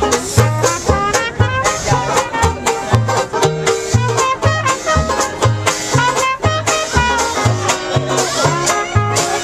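Upbeat music with a bass note on a steady beat, about two a second, under busy melody lines.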